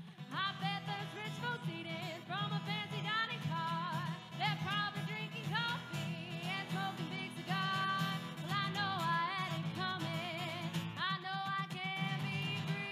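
Background music, country style, with guitar and a lead melody that slides and bends between notes over a steady low accompaniment.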